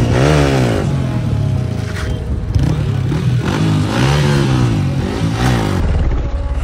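Yamaha MT-15's 155 cc single-cylinder engine, fitted with an aftermarket exhaust, revving up and falling back about four times as the rider throttles into a wheelie.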